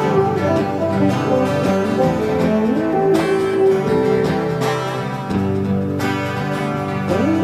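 Instrumental music led by guitar, with sustained notes and a few sliding pitch bends.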